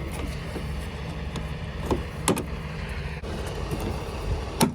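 Semi truck's engine idling with a steady low rumble, with a few sharp clicks and knocks over it.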